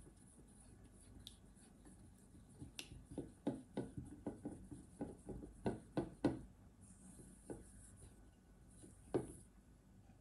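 Silicone spatula stirring thick chocolate ganache in a stainless steel bowl: a run of soft knocks and scrapes against the bowl, about three a second through the middle, then one more knock near the end.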